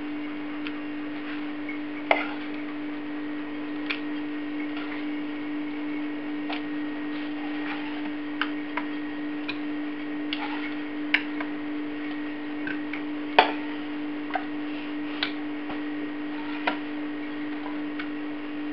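Metal spoon clinking and scraping against a stainless-steel saucepan as baked beans are spooned out onto plates: irregular sharp clinks, the loudest about two seconds in and again past the middle, over a steady low hum.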